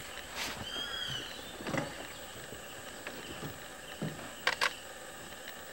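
Forest ambience: a bird gives a short arching whistled call about a second in, with a few low rustles and two quick sharp clicks near the end.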